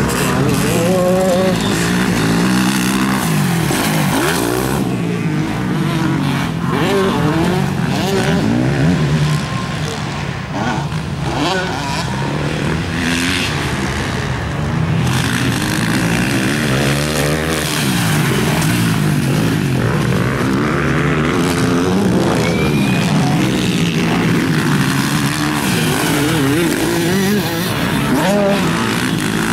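MX2-class motocross bikes racing, their engines revving up and down over and over as the riders open and close the throttle.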